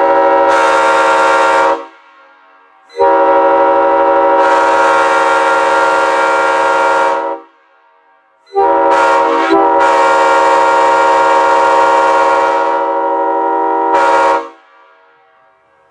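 Railroad air horn blown in three blasts: a short one, then two long ones of about four and six seconds, each a steady chord of several tones. The last blast wavers briefly just after it starts.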